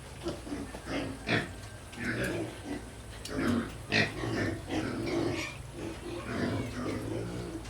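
Pigs calling in a string of short, irregular grunt-like calls, with a couple of louder ones about one and a half and four seconds in.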